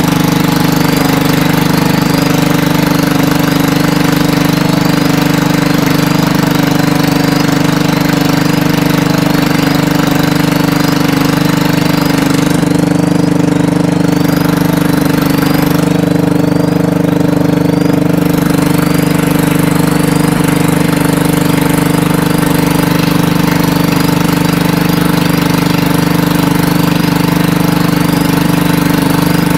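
Honda EG5500CL generator's single-cylinder petrol engine running steadily at a constant speed, its hum swelling and easing gently about every two seconds.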